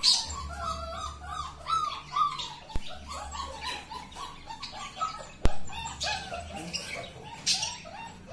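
Beagle puppies whining: many short, high cries that rise and fall in pitch, one after another. A sharp click comes about two-thirds of the way through.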